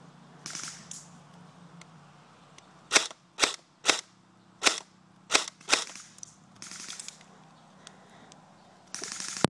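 Airsoft gun firing six sharp shots at an uneven pace, about half a second to a second apart, with a few short scuffing noises before and after them.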